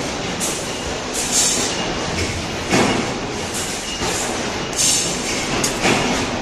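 Sheet-metal shop noise around an EKO full-electric servo press brake bending steel plate: a steady mechanical din broken by short sharp clanks and clatters about once a second.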